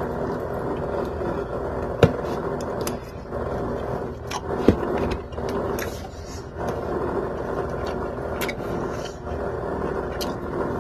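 Metal fork scraping and tapping in a plastic takeout bowl of okra soup, with two sharp clicks about two seconds and about four and a half seconds in, over steady room noise.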